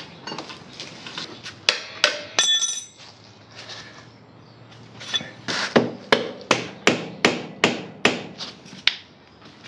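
Hammer blows: a few scattered strikes, a short metallic ring about two and a half seconds in, then a steady run of about nine blows, roughly two and a half a second, near the end.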